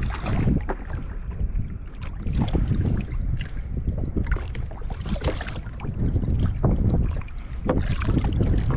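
Wind buffeting the microphone in a steady low rumble, with irregular splashes and knocks as a hooked moray eel thrashes at the water's surface.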